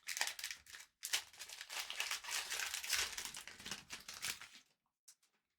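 Wrapper of a Panini Prizm basketball hobby pack crinkling as it is torn open and peeled off the cards, in a short burst and then a longer stretch of about three and a half seconds.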